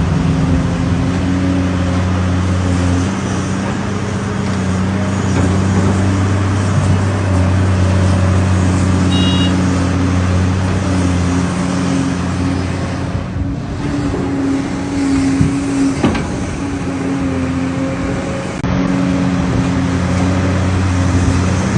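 Heavy diesel engines of an excavator and a truck running steadily under load, the engine note stepping in pitch a few times. A single knock about three-quarters of the way through.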